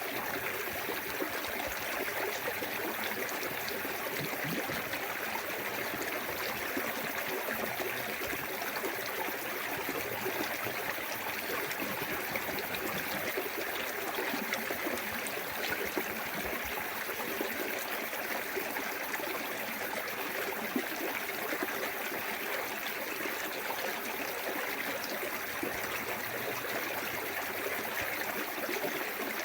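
Small waterfall spilling into a clear forest stream: a steady rush of running water with trickling and gurgling, even throughout.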